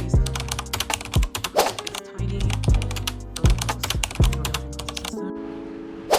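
Background music: held notes over a steady bass with rapid crisp clicking throughout, the bass dropping out about five seconds in.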